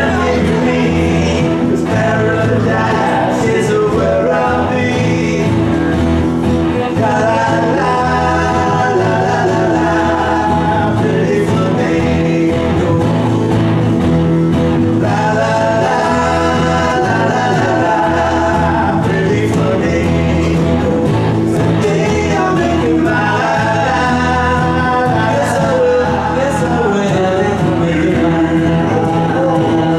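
A live band playing a song, with singing over steady instrumental backing.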